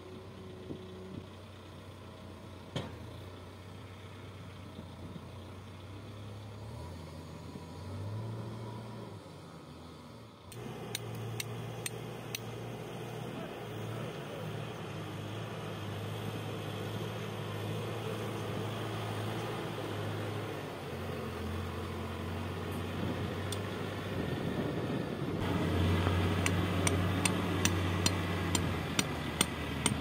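Diesel engine of a Case 570ST backhoe loader running under work, its note shifting up and down. Near the end a reversing alarm beeps, about two short beeps a second.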